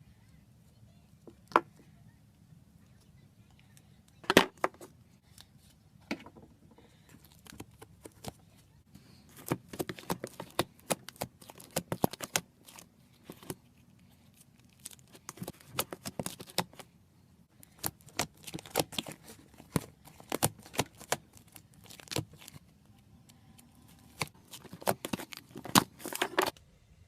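Slime being squeezed and poked: irregular sharp clicks and pops in quick clusters, sparse at first and then denser from about nine seconds in, over a faint low hum.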